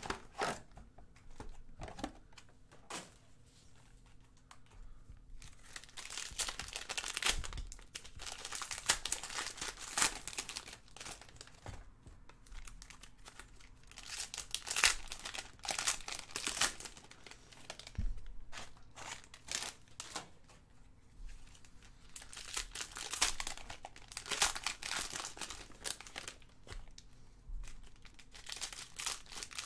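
Panini Prizm basketball foil card packs being handled and torn open: crinkling and tearing of the foil wrappers in irregular bursts, with a quieter stretch a few seconds in.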